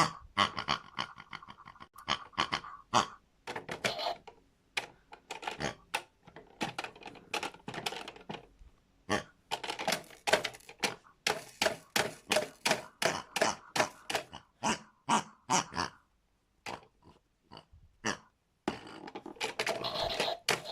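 Pigs grunting and oinking in a rapid run of short grunts, with a couple of brief pauses near the end.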